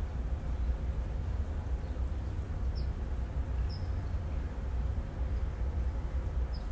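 A few short, high bird chirps over a steady low outdoor rumble.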